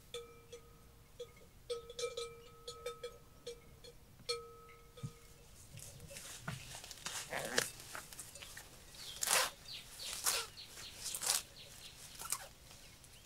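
A small bell clanking again and again at one pitch for about five seconds, then a run of irregular rustling and crunching noises.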